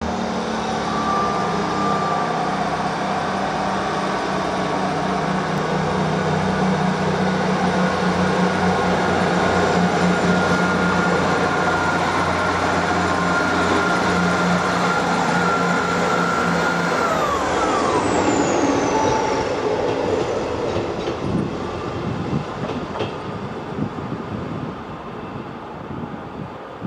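Class 159 diesel multiple unit passing close by, its underfloor Cummins diesel engines drumming steadily with a high whine. About two-thirds of the way in, the whine slides down in pitch as the unit goes past. After that a quieter rumble of wheels and engine fades away.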